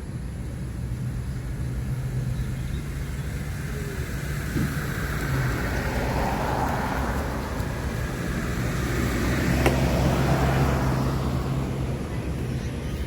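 A road vehicle passing by, its noise swelling over several seconds and fading near the end, over a steady low engine hum.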